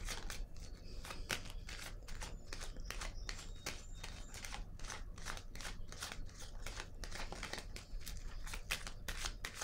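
Tarot cards being shuffled and handled: a dense, irregular run of soft card clicks and crackles, several a second.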